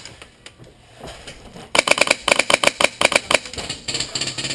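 Airsoft gun fire: a rapid string of sharp shots at about eight a second for about a second and a half, then a faster, denser rattle of automatic fire starting near the end.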